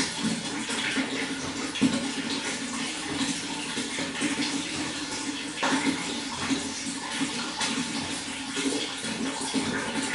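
Running water flowing steadily, with many small splashes throughout.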